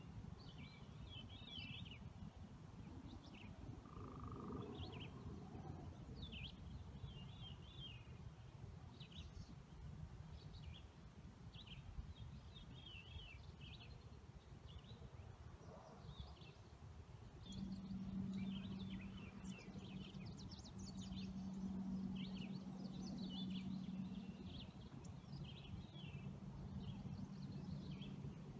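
Faint, repeated high chirps and short trills like birdsong, over a steady low rumble. A steady hum joins in about 17 seconds in.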